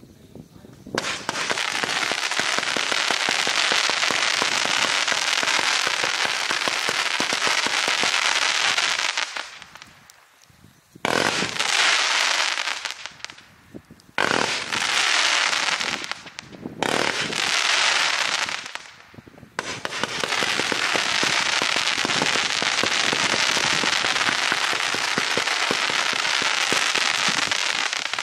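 A 126-shot, 500-gram firework cake with 0.6-inch and 1-inch tubes firing rapid shots in long, dense runs of bangs and crackle. The runs are broken by four short pauses, near 10, 14, 17 and 19.5 seconds in.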